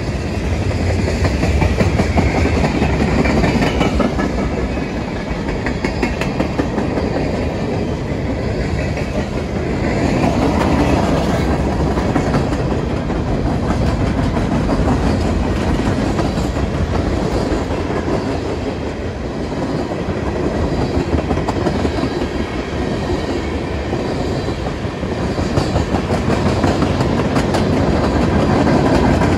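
A long freight train's cars rolling past close by, a steady loud noise of steel wheels on the rails that swells and eases as the cars go by.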